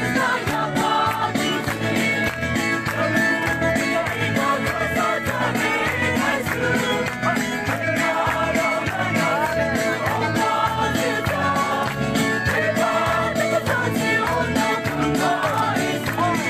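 A large crowd singing a gospel hymn together to a steady beat.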